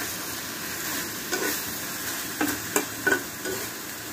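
Chopped water-lily stems and shrimp sizzling in a black kadai while a metal spatula stirs them, scraping and knocking against the pan several times in the second half. The dish is nearly done.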